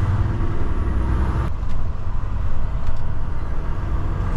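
Lorry engine and road noise heard inside the cab while driving: a steady low rumble. The sound changes abruptly about one and a half seconds in.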